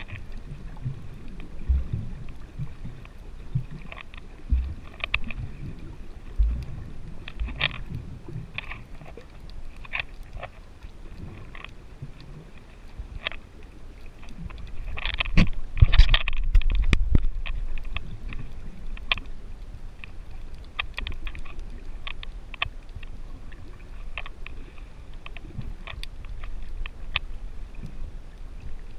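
Muffled underwater sound picked up by a camera in a waterproof housing while snorkelling: a low water rumble with scattered short clicks, and a louder rushing stretch about halfway through.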